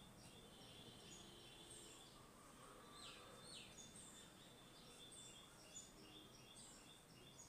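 Near silence: faint room tone with faint, high chirps repeating in the background, and two short falling squeaks about three seconds in.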